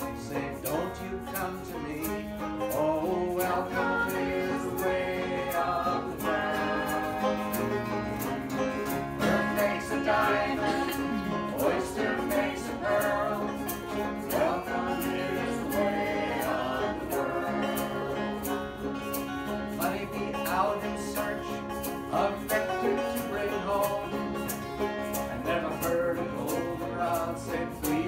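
Small acoustic band playing live: acoustic guitar strumming and banjo picking at a steady beat, with voices singing a folk or country-style song over them.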